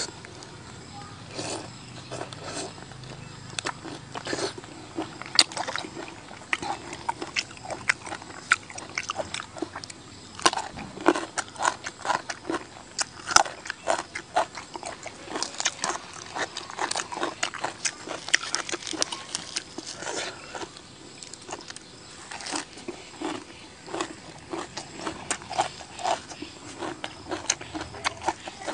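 Close-up chewing and lip-smacking of raw river prawn: irregular wet smacks and sharp crunchy clicks, some louder than others, repeating throughout.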